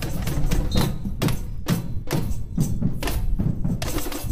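Samba bateria drumming: a street samba drum band's deep bass drums and sharp hand percussion play a steady beat at about four strong hits a second.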